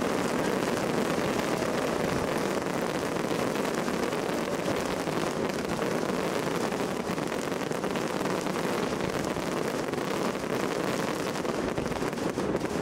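Fireworks display: a dense, continuous barrage of many bursts going off at once, a steady wash of crackling and popping with no single boom standing out.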